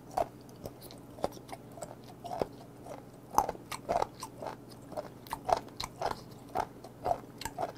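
A person chewing a mouthful of raw horned turban sea-snail meat, close to the microphone, with irregular sharp clicks roughly two a second.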